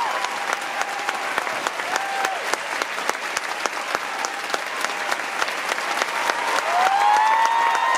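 Theatre audience applauding: dense, fast clapping with shouted whoops over it, a short one about two seconds in and a long one near the end that rises and then holds.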